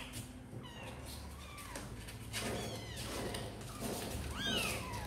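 Young kittens mewing repeatedly in high, thin calls that rise and fall in pitch, the loudest call near the end.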